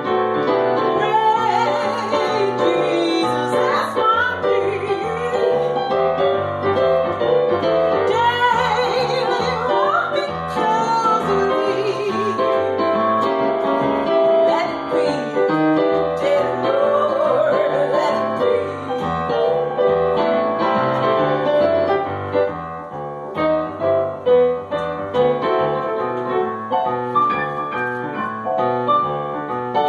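A woman singing with vibrato while accompanying herself on the piano. About three quarters of the way through, her voice stops and the piano plays on alone.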